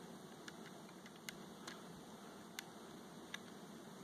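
Faint, scattered light clicks from handling the pistol and trigger pull scale, over a low steady hiss.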